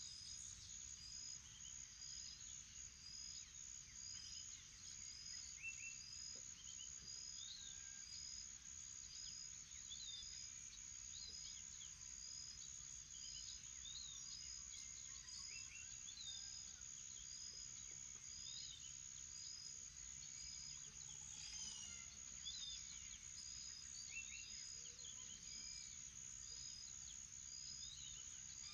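Faint morning chorus of birds and insects: a steady high insect drone, a short high note repeating about once a second, and scattered bird chirps.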